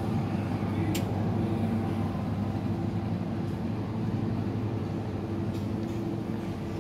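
Steady low machinery hum of a supermarket, with a couple of faint clicks.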